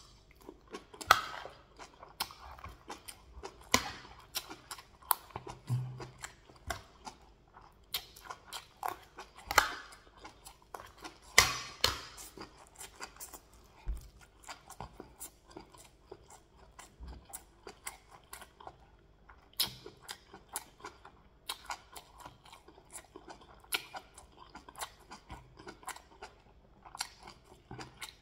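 A person chewing a mouthful of white rice with waterleaf soup, with many sharp, irregular clicks of the mouth.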